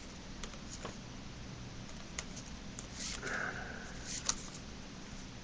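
Faint clicks and rustles of trading cards being leafed through by hand, over a low steady room hum, with a short breathy sound about three seconds in.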